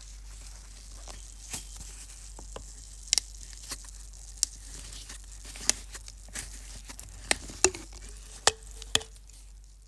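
Freshly opened soda fizzing: a steady hiss of carbonation with irregular sharp pops and crackles of bursting bubbles, about one or two a second.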